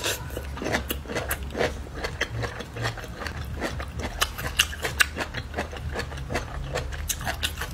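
Close-miked chewing of a crisp, fibrous bamboo shoot: many short, irregular wet clicks and crunches, over a faint low hum.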